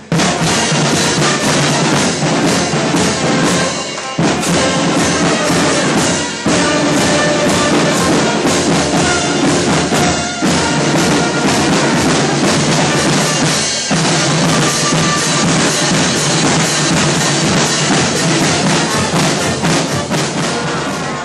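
Small marching-style band of clarinet, brass and drums playing a lively tune, with steady bass-drum strokes under the melody. It is loud and breaks off for an instant a few times.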